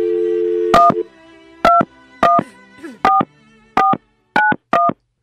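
Telephone dial tone, a steady two-note hum, cut off about a second in as touch-tone dialing starts: seven short DTMF key beeps, each a pair of tones, as a phone number is dialed.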